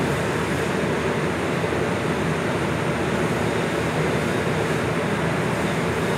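Steady industrial workshop noise: a continuous, even rumbling hiss of running machinery that does not change, with no distinct knocks or events.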